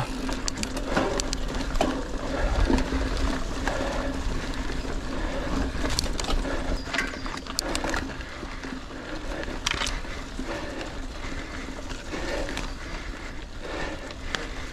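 Mountain bike moving over a dirt forest trail: steady tyre noise with frequent small knocks and rattles from the bike, and a low wind rumble on the microphone.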